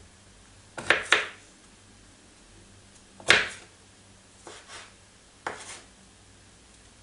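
Kitchen knife chopping broccoli on a wooden cutting board: a quick pair of chops about a second in, a louder single chop just past three seconds, then a few softer cuts.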